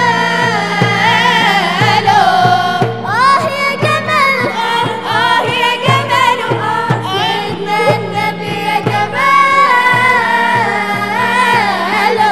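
Mixed group of male and female voices singing an Arabic Islamic devotional song (inshad) with long ornamented melodic lines, over a steady drum beat about twice a second and a sustained low drone.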